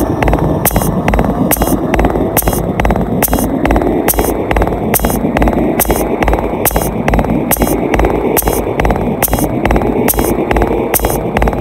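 Witch house electronic music: a steady beat of bright hi-hat-like ticks about twice a second over a pulsing low bass, with a rising synth sweep repeating every couple of seconds.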